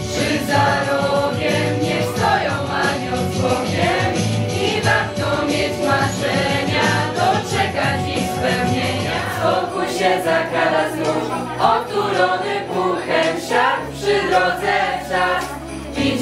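A group of teenage students singing a Christmas carol together in chorus, one girl's voice carried through a handheld microphone.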